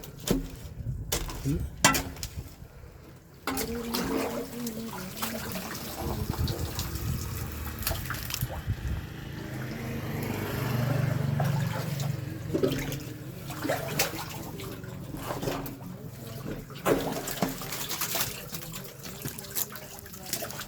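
Water gurgling and splashing in a blocked drain manhole, swelling to its loudest about halfway through. A few sharp knocks come in the first couple of seconds.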